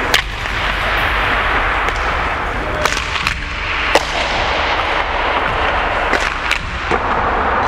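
Steady hiss broken by about half a dozen sharp cracks ringing out in an ice arena, the loudest about four seconds in.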